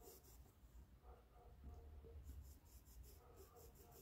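Faint brush strokes on fabric: a paintbrush rubbing and dabbing paint into cloth, a soft scratching repeated in quick strokes over a low hum.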